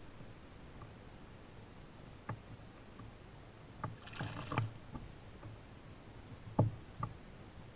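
Scattered light knocks and taps on a kayak and the fishing gear aboard it: a cluster about four seconds in and a sharper knock about six and a half seconds in.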